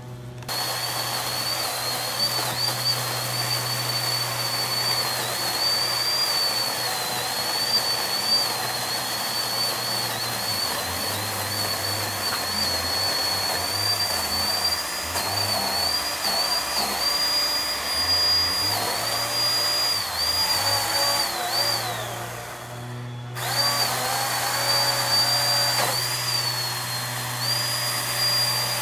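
Ryobi cordless electric pole saw running, a steady high whine whose pitch dips again and again as the chain bites into a tree limb. It winds down about 22 seconds in, stops for about a second, then starts up again.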